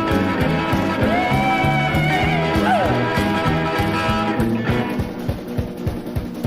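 Rock-and-roll band playing an instrumental break led by guitar over a steady beat and walking bass. A note is held and bent about a second in, then slides down a little before halfway.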